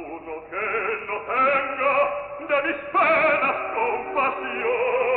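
Operatic baritone singing a zarzuela passage with vibrato over orchestral accompaniment; the sound is narrow and dull, with no top end.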